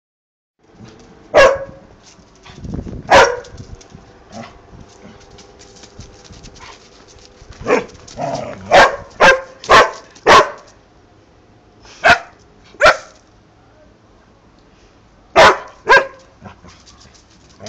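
Rough collies barking in play: sharp single barks, about eleven in all, with four in quick succession around the middle.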